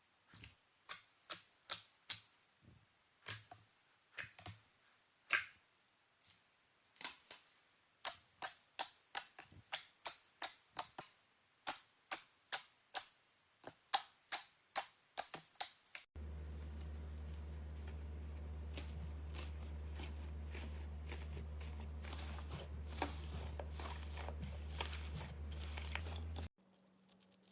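Slime being pressed and poked, making sharp clicks and pops, about two a second. Past the middle it switches abruptly to a steady low hum with faint crackling, which cuts off near the end.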